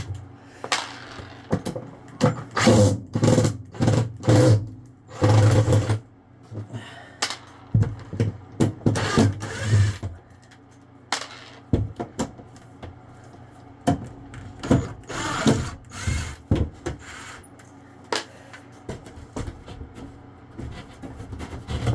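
Cordless drill running in short bursts to back out the screws holding a wall panel, followed by scattered knocks and clicks as the panel and screws are handled.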